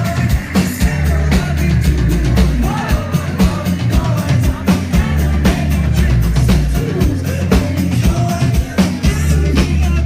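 A band playing live with a steady drum-kit beat and heavy bass under a sung vocal line.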